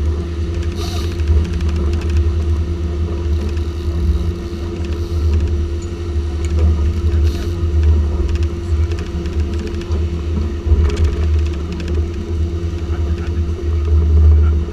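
Twin Yamaha 350 hp V8 four-stroke outboards running steadily with the boat under way, a constant whine riding over a heavy, fluctuating low rumble of wind on the microphone.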